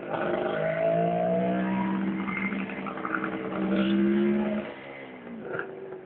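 Kawasaki H2A 750SS Mach IV's air-cooled two-stroke triple accelerating with a rising engine note, then dropping away sharply about four and a half seconds in.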